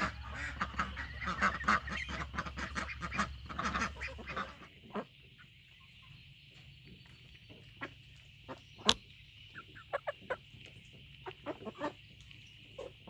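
Backyard ducks and hens calling, mostly quacks: a busy run of overlapping calls for the first four seconds or so, then only scattered short calls and a few sharp clicks over a faint, steady high hiss.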